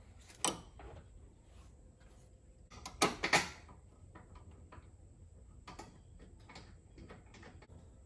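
Aftermarket lap seat belt hardware being handled: metal anchor brackets and buckle clicking and clinking as they are set in place over the seat-mount bolt holes, with the loudest knocks about three seconds in and lighter clicks after.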